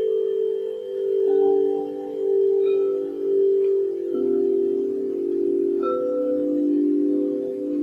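Harmonic meditation tones: long, overlapping ringing notes. New notes join about a second in, again at about four seconds, and near six seconds.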